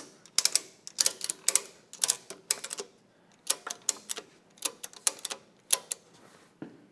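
Ratchet strap's ratchet buckle clicking in short bursts as its handle is cranked, about two strokes a second with a brief pause about three seconds in, stopping near the end. The strap is being tightened to pull a leaf spring into position.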